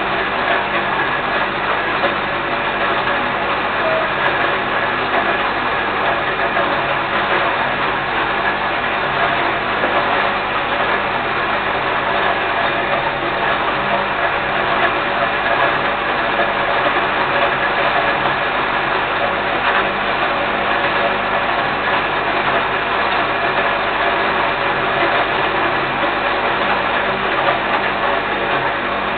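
Electric grain mill running steadily while grinding grain, a continuous even motor hum with grinding noise.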